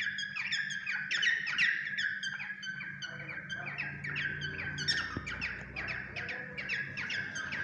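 A bird singing: a fast, continuous run of short repeated chirps over a steady high whistled note.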